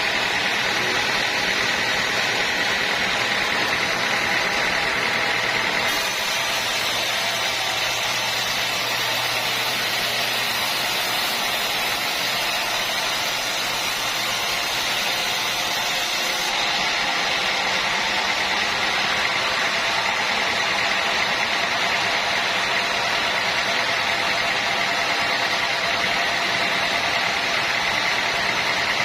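Sawmill machinery running steadily with a constant mechanical hum and hiss.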